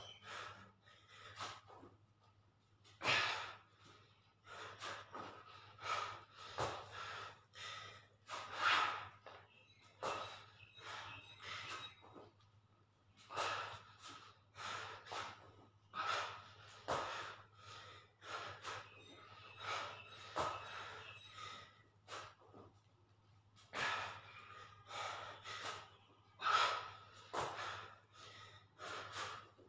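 A man breathing hard in quick, sharp puffs, the effortful breaths of someone in the middle of a set of dumbbell push-ups.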